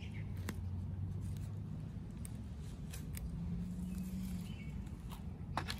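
Small hand trowel digging into stony garden soil: a few scattered scrapes and clicks of the blade against soil and pebbles, over a steady low hum.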